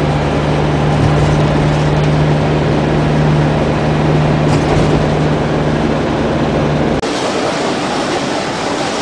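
Steady engine drone and road noise inside a moving bus, with a low hum running under it. About seven seconds in it cuts off abruptly to the broad, even noise of a busy street.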